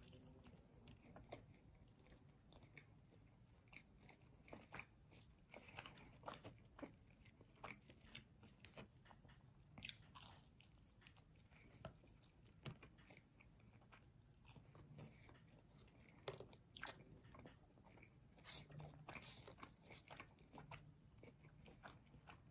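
Faint chewing and biting of food: irregular soft crunches and mouth clicks, a few every second.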